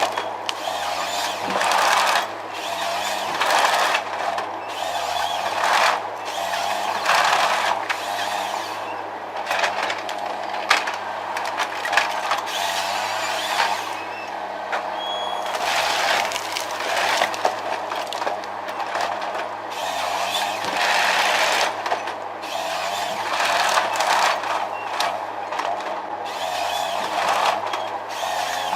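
Heavy machinery running: a steady low hum under irregular, hissing bursts of noise that come and go every second or two.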